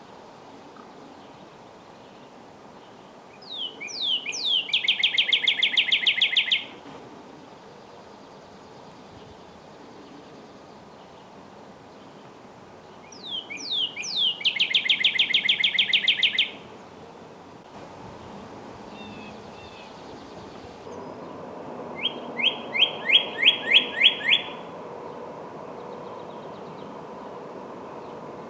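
Northern cardinal singing: three song phrases several seconds apart. The first two start with a few down-slurred whistles that run into a fast trill. The third is a slower series of about seven slurred whistles.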